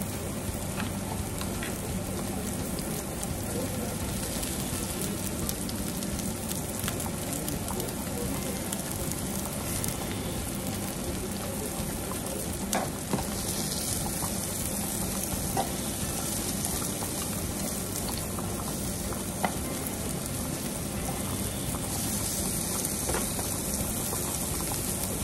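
Sliced mushrooms and red onion sizzling steadily in a non-stick frying pan, with a few light clicks of a utensil stirring against the pan.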